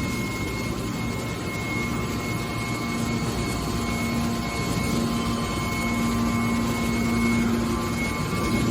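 Hydraulic scrap metal baler running: steady machine noise with a constant low hum that grows stronger about halfway through.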